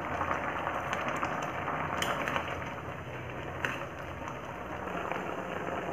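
Sugar syrup boiling hard on high flame in an open kadhai full of paneer pieces, with a steady bubbling. Twice, about 2 s and 3.7 s in, a plastic spatula lightly knocks against the pan as the pieces are stirred.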